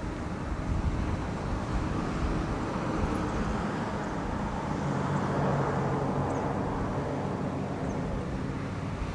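Wind rumbling on the microphone with road traffic, a vehicle passing and swelling about five seconds in.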